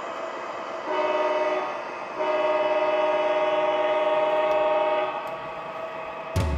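Model diesel locomotive's Proto-Sound 3 horn, played through the engine's onboard speaker: a short blast about a second in, then a long blast of about three seconds. A sudden low thump comes near the end.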